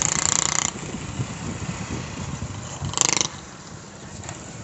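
Motorcycle being ridden: engine running under the rider with wind rush on the microphone, loud for the first second and then dropping off sharply. A short, loud burst of noise comes about three seconds in.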